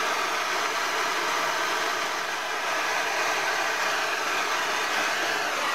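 Steady, even rushing hiss at a constant level, with no breaks or impacts.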